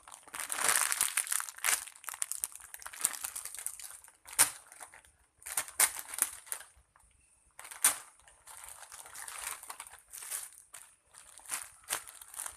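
Crinkling and crackling in irregular bursts of handling as a squishy toy is squeezed, with a brief pause about seven seconds in.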